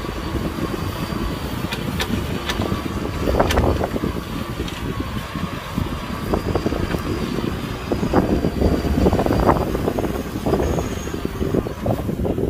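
Kubota M6040 tractor's diesel engine running steadily under load while pulling a disc plow through wet paddy soil, with a steady whine over the low rumble and scattered clanks from the plow and steel cage wheels.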